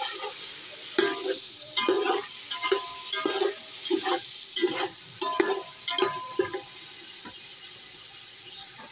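Chicken pieces frying in hot ghee in a large metal pot, a steady sizzle, while a perforated metal skimmer stirs them, scraping and clinking against the pot in repeated strokes. The stirring stops about two-thirds of the way through, leaving the sizzle alone. This is the chicken being roasted before it is taken out.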